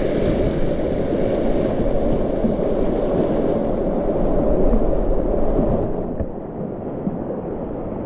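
Whitewater rapids rushing and churning around a kayak running through them. About six seconds in, the sound turns suddenly duller and a little quieter.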